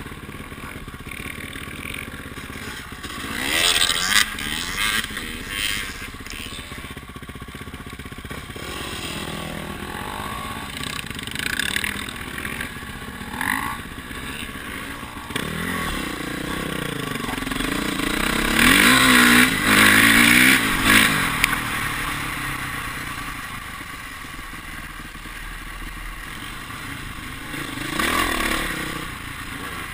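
Dirt bike engines revving and running as several trail bikes ride past, each rev rising and falling in pitch, loudest about two-thirds of the way through.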